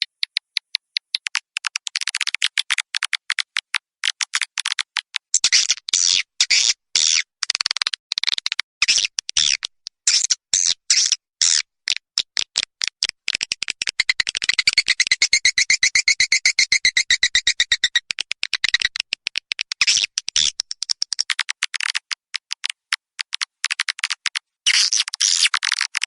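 Swiftlet call recording of the kind played to lure edible-nest swiftlets into a nest house: rapid trains of sharp chirps and clicks, thickening into a dense, continuous twitter about fourteen to eighteen seconds in.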